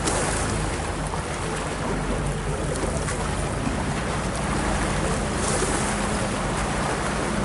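A boat's engine running steadily under a rush of water and wind on the microphone, with a louder surge of hiss at the start and again about five and a half seconds in.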